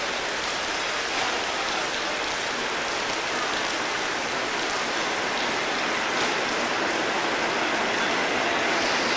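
Class 37 diesel-electric locomotive 37427, with its English Electric V12 engine, arriving slowly at a platform. It is heard as a steady rushing noise that grows a little louder as it comes closer.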